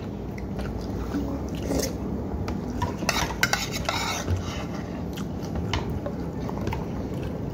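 A spoon scraping and clinking against a plate while scooping rice, with a few short sharp clicks.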